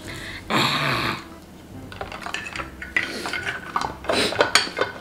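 Metal fork clinking and scraping on a plate while food is eaten, with many small sharp clicks in the second half. A short rustle comes about half a second in.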